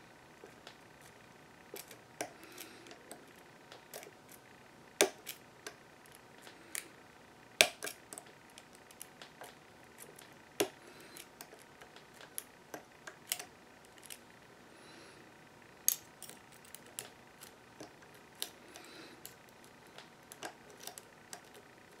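Lock pick and tension wrench working the pin tumblers of a solid-brass American Lock 5530 padlock: irregular small metallic clicks and ticks, a few louder than the rest.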